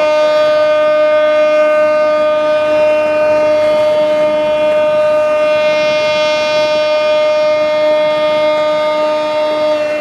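Ship's horn sounding one long blast at a single steady pitch, rich in overtones, beginning to die away at the very end.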